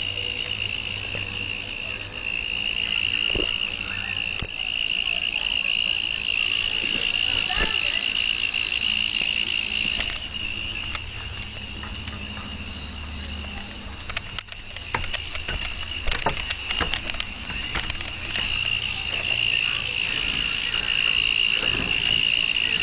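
Night insects chorusing: a steady, unbroken high-pitched trill. A cluster of sharp clicks and taps comes in the middle, over a low hum.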